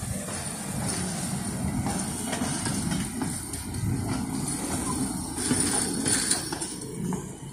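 Small motorised rail trolley driving past on narrow-gauge track: its engine running steadily, with a few sharp clicks from the wheels on the rails in the second half.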